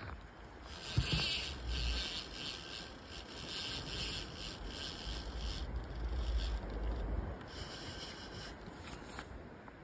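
Rubbing and rustling noise close to the microphone, with gusts of low rumble and a sharp click about a second in.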